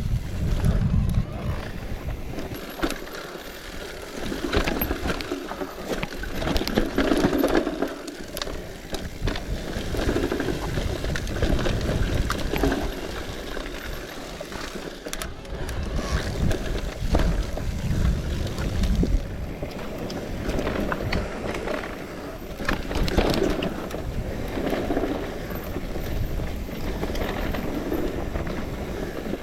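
Wind buffeting the microphone on a moving bicycle, with road and tyre noise. The low rumble gusts up and down, with scattered clicks from the bike.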